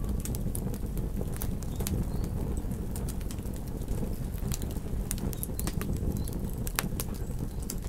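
Campfire crackling: irregular sharp pops and snaps over a steady low rumble of burning wood.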